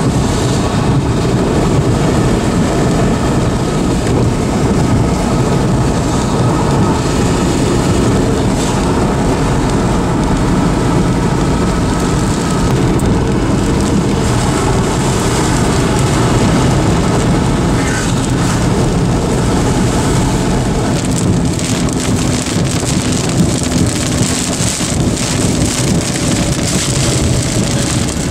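Steady noise heard from inside a car driving through a heavy storm: tyres on the wet road and wind and rain on the car, with rain pattering on the body and windshield, the hits coming thicker in the second half.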